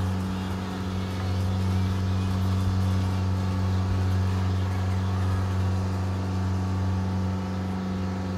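An engine running steadily at a constant low hum, its speed unchanging throughout.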